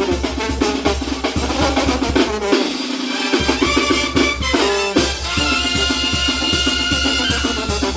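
A Mexican banda playing: a drum-kit beat with bass drum and snare, the low end dropping out briefly around three seconds in, then long held notes over the beat from about five seconds.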